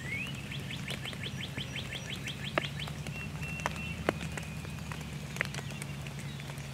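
Songbirds singing: a fast trill of rising notes, about seven a second, runs for about two seconds starting half a second in, with other short chirps and whistles around it. A steady low hum and a few sharp clicks sit underneath.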